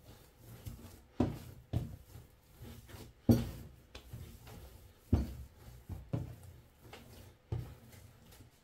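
Hands kneading mandazi dough on a smooth countertop: the dough is pressed, folded and thumped down, giving about seven irregular dull thuds, the loudest a little past the middle.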